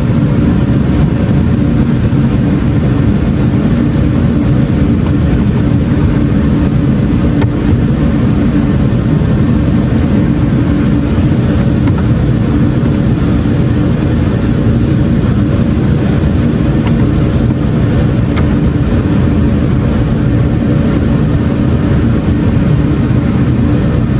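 A car engine running steadily with no change in speed.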